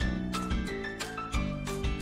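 Background music with a steady beat, sustained bass notes and a bright chiming melody.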